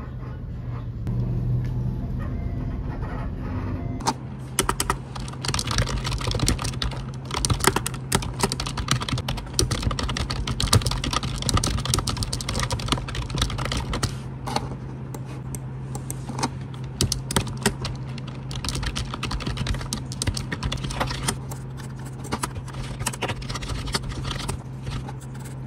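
Bus engine rumble heard from inside a city bus for the first few seconds. Then fast typing on a computer keyboard: a dense, irregular run of keystroke clicks.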